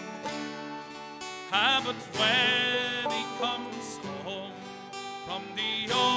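Live Irish folk band playing a tune: strummed acoustic guitar under a melody line that bends and wavers in pitch.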